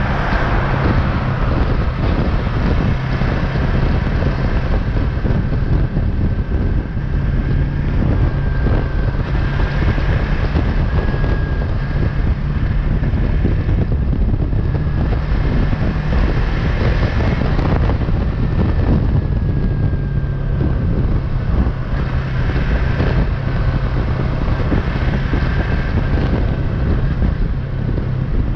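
Wind rushing over the action camera's microphone at about 65–75 km/h, over the steady running of a Yamaha MT-03's parallel-twin engine at cruise.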